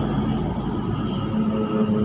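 Diesel engines of a bus and a light truck passing close, a steady engine drone with a low hum and a slight whine rising near the end.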